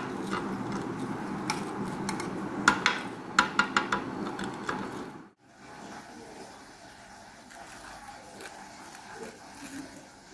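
Metal tongs clicking and tapping against a ceramic plate as fried breaded chicken fingers are set down, over a steady background hum. After a brief drop-out about five seconds in, faint crackles of the crispy crumb coating being handled.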